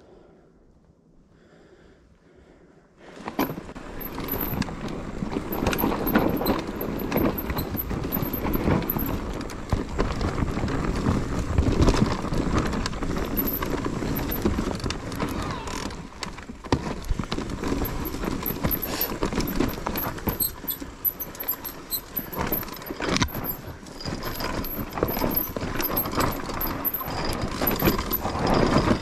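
Enduro mountain bike riding rough trail: tyres crunching over rocks and roots while the frame, chain and components rattle and clatter continuously, with many sharp knocks. The clatter starts abruptly about three seconds in, after a faint start.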